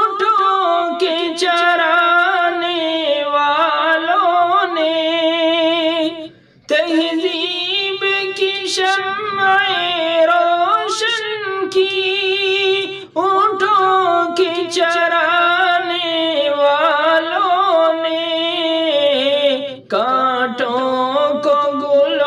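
A man singing a naat unaccompanied, in long held, wavering notes, pausing briefly for breath about every six or seven seconds.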